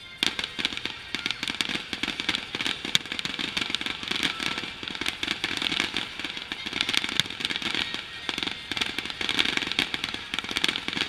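Fireworks display: aerial shells bursting in a dense, continuous run of crackles and bangs that starts suddenly just after the beginning.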